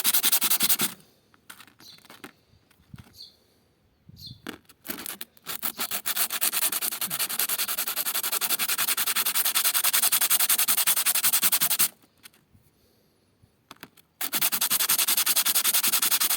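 Bicycle disc brake pad rubbed back and forth on coarse sandpaper in quick strokes, grinding off its oil-soaked surface layer that makes the brake squeal. The sanding stops for a few seconds about a second in, with a few light clicks, and pauses again briefly near the end.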